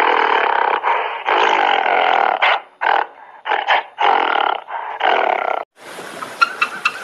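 A large animal roaring, a string of loud, rough calls one after another; near the end the sound cuts suddenly to a hissing, splashing noise with a few clicks.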